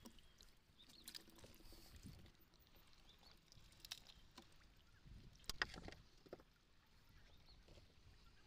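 Near silence: faint water and hull sounds of a small wooden outrigger canoe, with a few light knocks, the sharpest a little past the middle.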